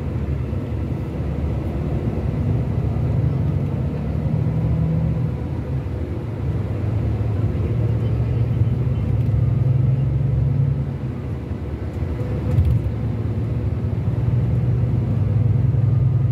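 Diesel engine of a Mercedes-Benz O-500RSD double-decker coach running, a steady low drone. It eases off about five seconds in and again about eleven seconds in, then picks back up.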